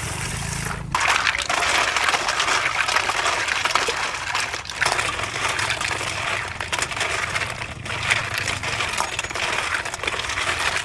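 Many small hard shells clattering and clinking against one another, with no letting up: live snails being stirred or tipped in a container.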